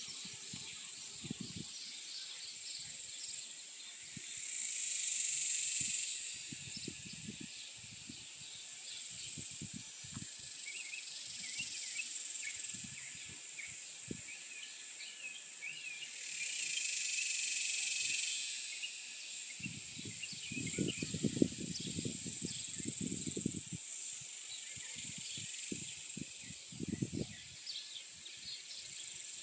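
Summer outdoor ambience: insects drone steadily on a high pitch, swelling louder twice, while birds chirp throughout. Irregular low rumbles come and go, strongest in the second half.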